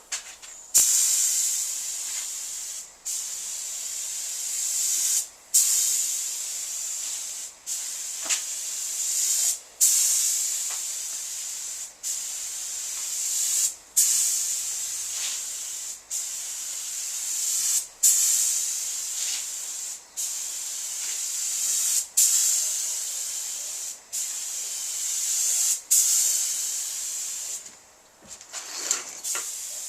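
Compressed-air paint spray gun hissing in repeated passes of about two seconds, the trigger let off briefly between each, laying a light tack coat of paint on a van body.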